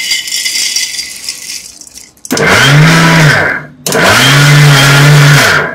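Shelled peanuts clatter as they are poured into the steel jar of a Sujata Dynamix mixer grinder. The mixer is then run twice in short pulses of about a second and a half each, grinding the peanuts to powder; each time the motor rises in pitch as it spins up and falls as it slows.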